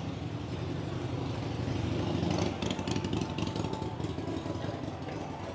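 An engine running, growing louder to about two seconds in, then a brief spell of clattering.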